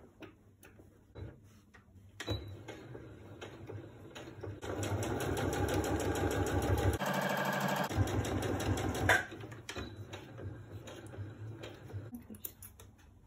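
Electric household sewing machine stitching a dart through cotton fabric: a fast, even needle rattle that runs longest and loudest through the middle, stopping about nine seconds in. Before and after the run there are only light scattered clicks.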